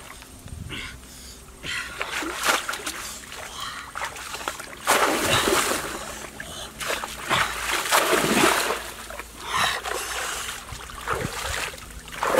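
Muddy stream water splashing and sloshing irregularly as a bamboo plunge-basket fish trap is pushed down through the shallows and a person wades, with the heaviest splashing about five and eight seconds in.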